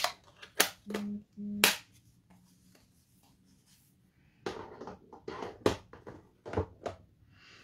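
Sharp plastic clicks of a Stampin' Up! ink pad case being snapped shut and set down, two of them about a second apart. After a quiet pause, a run of lighter clicks and rustles as ink pads and stamping supplies are handled on the desk.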